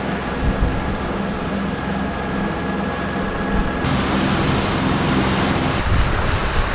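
Sailboat's Volvo Penta inboard diesel engine running steadily under way at cruising revs: a continuous low drone that shifts abruptly about four seconds in and again near six seconds.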